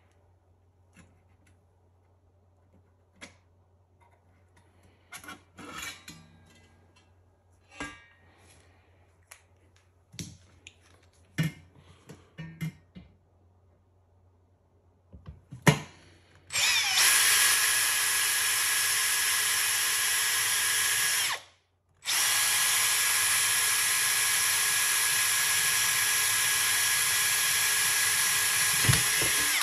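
Cordless drill running steadily at full speed, drilling into the oven's metal front in two runs of about five and seven seconds with a short stop between. Before it come light clicks and taps from handling.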